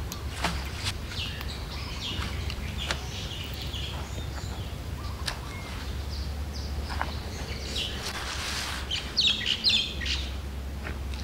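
Small birds chirping and calling, with a louder run of calls about nine seconds in, over scattered light clicks and rustles of a pop-up tent's nylon fabric and poles being unfolded.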